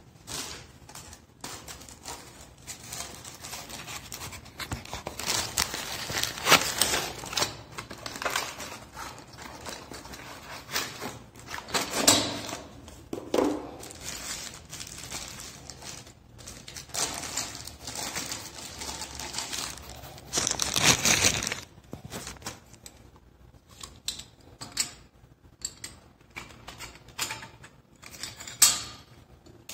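Plastic wrapping crinkling and rustling in irregular bursts while a chrome pop-up sink drain fitting is handled, with a few light clicks.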